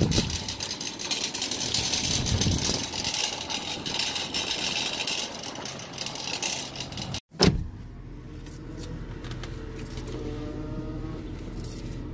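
A loud metallic jangling rattle for about seven seconds, then, after a sudden cut, a quieter steady low hum of a car running.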